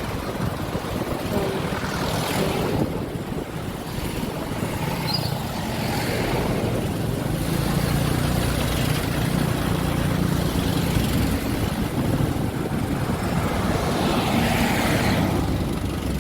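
Steady low engine drone, with rushing noise swelling about three seconds in and again near the end.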